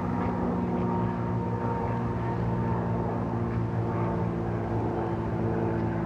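A steady engine or motor drone: a low hum with several held tones above it that shift slightly in pitch.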